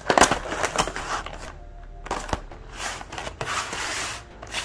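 Plastic keycap trays being handled, with sharp clicks and knocks of plastic, then the rustle of the protective paper sheets over the keycaps.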